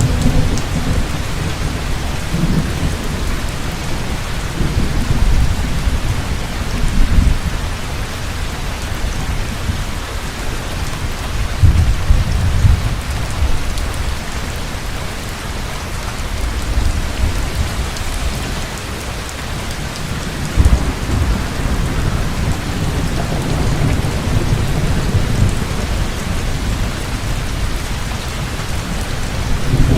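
Heavy rain falling steadily, with rolls of low thunder rumbling several times: through the first several seconds, about twelve seconds in, and again in a longer spell in the last third.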